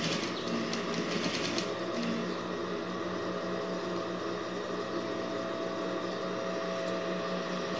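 Sewing machine running steadily, stitching along a fabric strip with a continuous, even hum.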